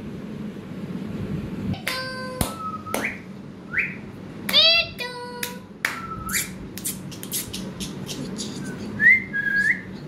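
Indian ringneck parakeet giving short whistles and squeaky calls, some level and some rising in pitch, with sharp clicks scattered between them.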